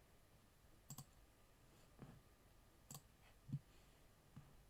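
Faint computer mouse clicks, a few single clicks spaced about a second apart, with a soft low thump about three and a half seconds in.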